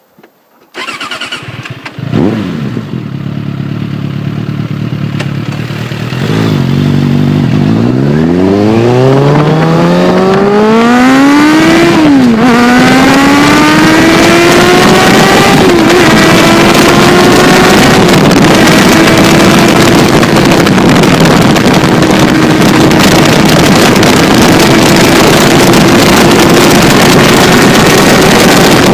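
Suzuki Bandit 600's inline-four through a D&D slip-on exhaust. It comes in suddenly about a second in and revs briefly, then pulls away with its pitch climbing steadily. An upshift about twelve seconds in drops the pitch, and it holds an even speed after, under heavy wind noise.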